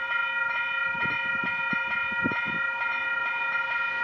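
Level crossing warning bell ringing, with a fresh strike about twice a second over a steady ringing tone: the crossing alarm is sounding for an approaching train.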